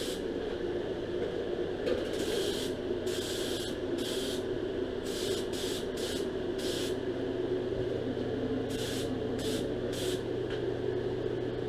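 Spray gun laying on POR-15 rust coating in short trigger bursts of hiss, about a dozen in quick runs, over a steady low hum.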